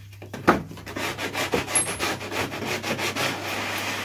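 Hand sanding block rubbed quickly back and forth over balsa wood, about six strokes a second, shaping a wing repair. One sharp knock about half a second in.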